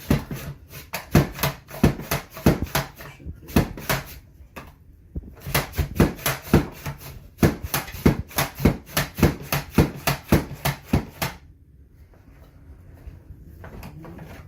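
Rapid Prep Mandoline slicing a potato into fries, stroke after stroke at about two a second. There is a short pause about four and a half seconds in, and the strokes stop about eleven seconds in.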